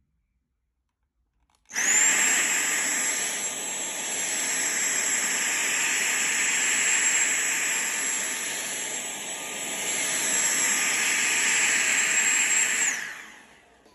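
Small high-speed electric appliance motor switched on, spinning up to a steady high-pitched whine over a rush of air, running for about eleven seconds, then spinning down.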